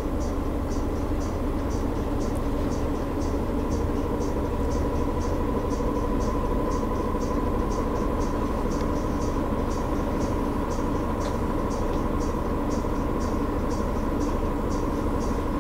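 Steady low rumble with a constant hum, under a short high chirp that repeats evenly about twice a second.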